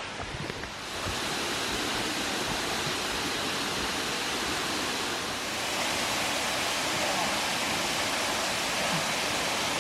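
Steady rush of Marymere Falls, a waterfall pouring into its pool, getting louder about a second in and then holding even.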